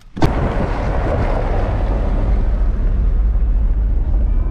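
Steady engine and tyre rumble inside a car cab while driving on a dirt track. It cuts in suddenly just after the start.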